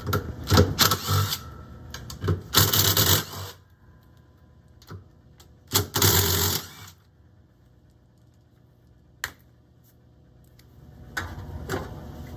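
A socket ratchet clicking in three short bursts as half-inch screws on a direct-drive washer are backed out, with a single knock later and more tool clatter near the end.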